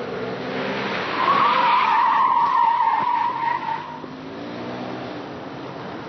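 A car's tyres squealing as it swings through a tight skidding turn on pavement, with its engine running underneath. The squeal is loudest from about one to four seconds in; after that the engine carries on alone.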